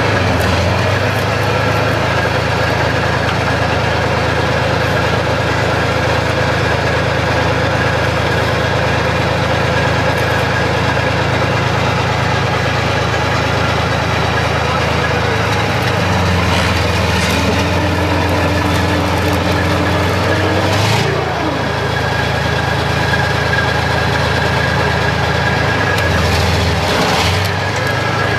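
T-55 tank's V-55 V12 diesel engine running loud and steady, revving up for several seconds past the middle, then dropping back sharply, with another brief change in pitch near the end.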